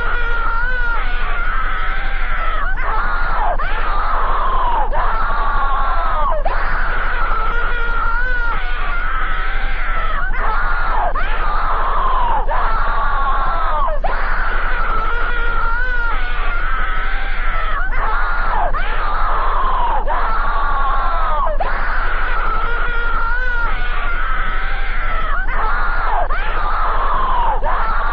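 Looped screaming, each cry bending up and down in pitch and repeating about once a second, over a steady low hum.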